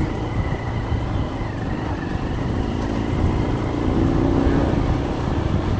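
Motorbike engine running steadily while riding along, a continuous low rumble.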